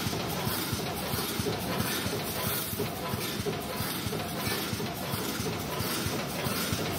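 Wire mesh welding machine running: a steady mechanical clatter of dense, irregular knocks.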